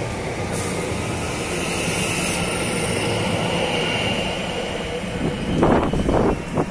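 Electric passenger train running past and drawing away, a steady rumble of wheels on rail with a faint high whine. From about five and a half seconds in, uneven gusts buffet the microphone.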